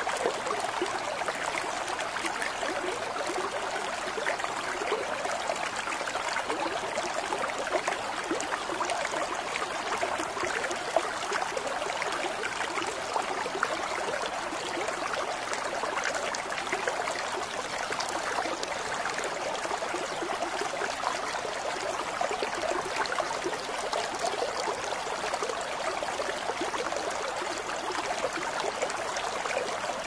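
Thin stream of water falling from a bamboo spout, trickling and splashing steadily.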